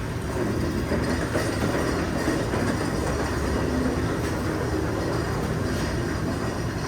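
A steady low rumbling noise with no clear events in it.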